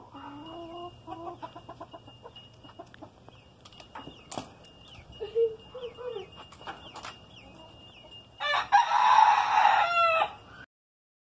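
Chickens clucking in short pitched calls, then a rooster crows loudly for about two seconds near the end and cuts off abruptly.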